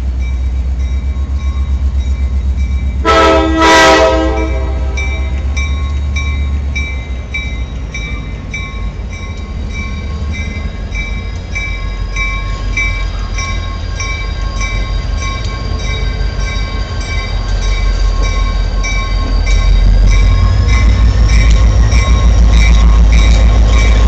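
EMD GP30 diesel locomotive's 16-cylinder two-stroke engine running as the locomotive rolls slowly in, with its bell ringing steadily. Two short horn blasts about three seconds in; the engine grows louder near the end as the locomotive passes close by.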